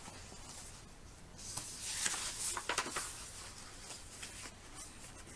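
Pages of a picture book being turned by hand: a paper rustle with a few crisp flicks about two to three seconds in, then faint room tone.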